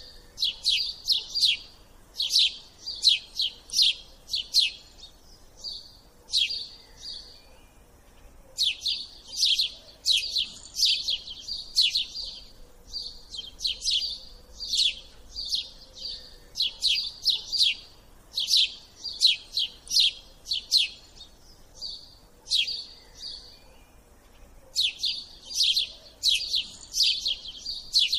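Small bird chirping: quick, high, sharp chirps in rapid bursts of several, with short pauses between bursts.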